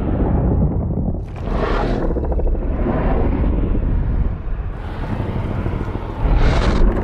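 Godzilla sound effect: a deep, heavy, noisy rumble with two louder rushing surges, one about a second in and one near the end.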